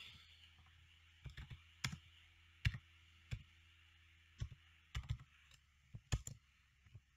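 Keys being pressed one at a time as numbers are keyed in for a calculation: about fifteen short sharp clicks at an uneven pace, some in quick pairs and triples.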